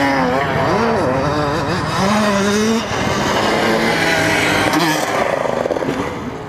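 Motocross dirt bikes out on the track, their engines revving and accelerating, the pitch repeatedly climbing and dropping as they ride through the course.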